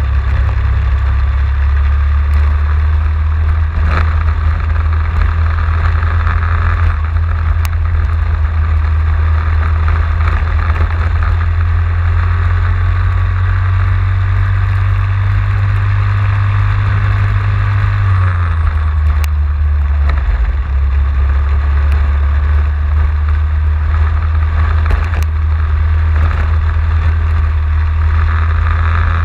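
Racing kart engine running hard at speed, heard onboard, with heavy wind rumble on the microphone; the loudness stays steady, and the low rumble shifts down a step about eighteen seconds in.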